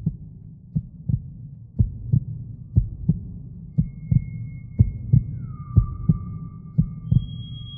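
Heartbeat sound effect from a horror soundtrack: a double thump about once a second over a low hum. Faint eerie high tones come in about halfway, one sliding slightly down in pitch.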